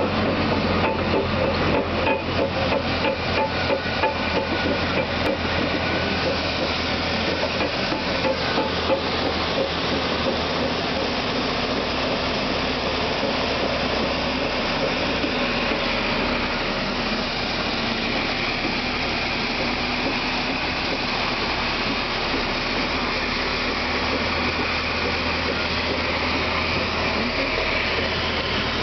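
Caterpillar D11 bulldozer working: a steady diesel engine drone with rapid metallic clanking, about four or five knocks a second, for roughly the first ten seconds. After that it settles into a steady mechanical din with a faint high whine. It is heard from inside a nearby machine's cab.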